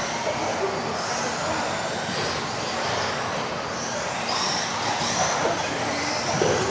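Several electric 1:10 off-road RC buggies racing: high-pitched motor whines rising and falling as the cars accelerate and brake, over a steady hiss of tyres on the hall floor.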